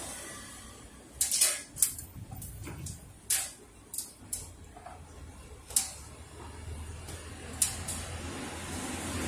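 Irregular sharp clicks and clacks of a Ricoh copier's fuser cleaning web unit being handled: its web roller and plastic end fittings knocking against the sheet-metal frame, about nine in all, over a low steady hum.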